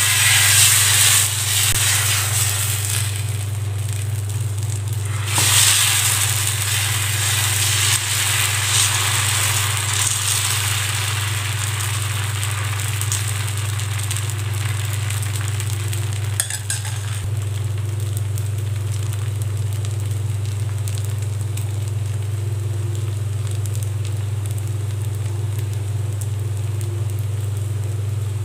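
Dosa batter sizzling on a hot dosa tawa as it is poured and spread in circles with a ladle. The sizzle is loud in the first few seconds and settles to a quieter steady sizzle as the dosa cooks. A steady low hum runs underneath.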